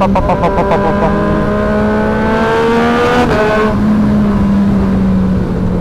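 Sport motorcycle engine and exhaust under way. A quick burst of crackles comes first, then a steady pull with the pitch slowly rising. The pitch drops about three seconds in, and the engine runs on steadily at lower revs.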